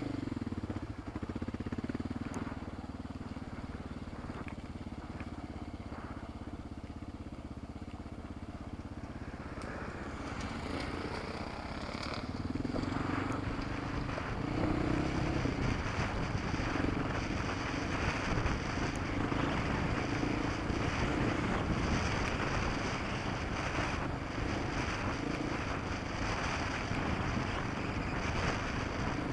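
Motorcycle engine idling, then pulling away and accelerating along a gravel track. It grows louder and higher from about ten seconds in, with wind and gravel noise over the engine.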